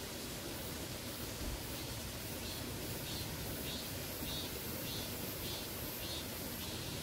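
Steady outdoor background hiss, with a faint high-pitched call repeating about eight times, roughly every half second, from about two seconds in until near the end.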